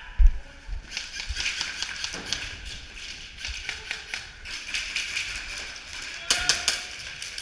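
Airsoft guns firing in rapid clattering bursts, with a few louder sharp cracks about six seconds in.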